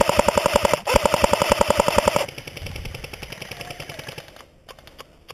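Cyma AK74M electric airsoft rifle firing on full auto, a fast, even chatter of about fifteen shots a second, in two long bursts with a brief pause about a second in, stopping about two seconds in. Fainter rapid clicking carries on for a couple of seconds after, then a few scattered clicks.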